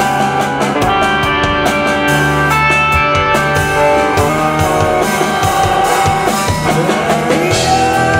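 Live rock band playing loudly over a PA: electric guitars and bass over a steady drum-kit beat, with held notes.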